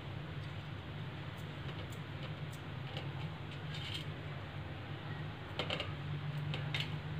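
Knife cutting paneer on a steel plate: irregular light clicks as the blade taps and scrapes against the metal, over a steady low hum.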